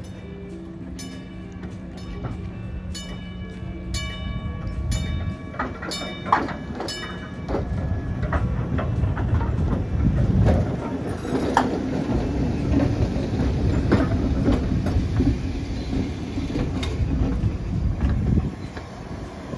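PCC streetcar rolling slowly over track crossings: its steel wheels clack over the joints and frogs, with a string of sharp metallic strikes that ring briefly, a steady low hum, and a louder rolling rumble about halfway through.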